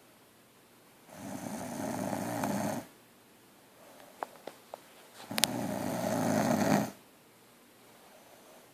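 A sleeping woman snoring: two long, loud snores about four seconds apart, each lasting under two seconds. A few short clicks come just before the second snore.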